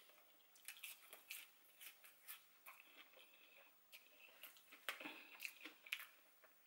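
Faint, close-miked chewing of hot chips: soft, irregular wet mouth clicks and smacks.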